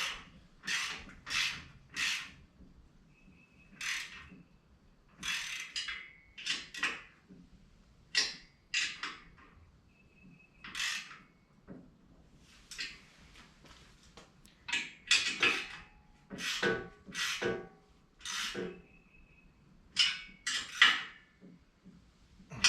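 Hand tool working the step's mounting bolts tight: a series of short rasping strokes, often in groups of two or three, typical of a ratchet wrench being swung back and forth.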